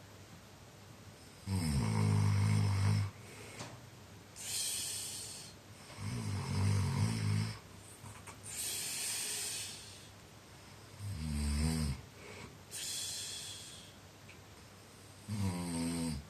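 Heavy snoring. Four low, pitched snores come about every four to five seconds, each followed by a hissing breath.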